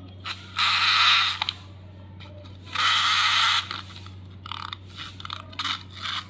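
Clockwork mechanism of a plastic wind-up fish toy being wound by its key: two long rasping turns about a second and three seconds in, then several short ones near the end. The toy is wound but does not run.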